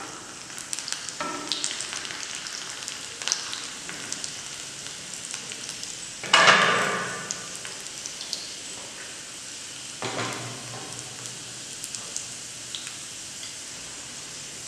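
Garlic sizzling and crackling in hot ghee in a small steel tempering pan, the tadka stage of the dish. A louder burst of sizzling comes about six seconds in and a smaller one near ten seconds.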